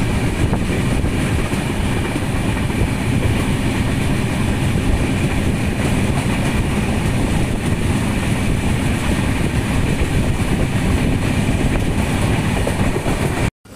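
Moving passenger train: a steady, loud rumble and rattle of the carriages running on the rails, cut off abruptly near the end.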